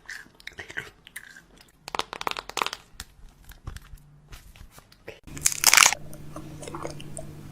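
Crunchy food being bitten and chewed close to the microphone, with crisp crackles. A louder crackling burst comes about five and a half seconds in, followed by a low steady hum underneath.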